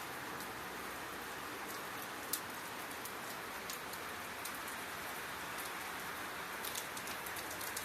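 Rain falling steadily with a continuous hiss, with sharp ticks of nearby drops hitting a surface on top: one loud tick about a third of the way in and a cluster near the end.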